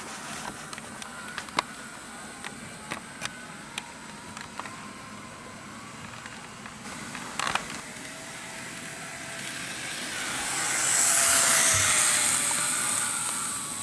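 N gauge model train running on the layout: scattered sharp clicks of the wheels over rail joints and points, then the running noise of the train's motor and wheels swelling as it passes close, loudest near the end before fading.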